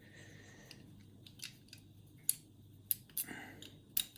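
Levers and spacers of a 5-lever mortice lock being handled and lifted off the lever stack, giving several sharp metallic clicks, mostly in the second half.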